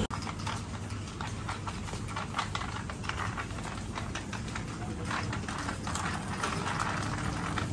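Footsteps on a hard tiled floor: irregular clicks and light clatter, several a second, over the low steady hum of a supermarket.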